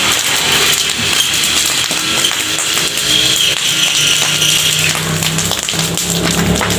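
Something burning, with a dense crackle of small pops over a steady hiss, and faint whining tones sliding in pitch; a low hum joins about four seconds in.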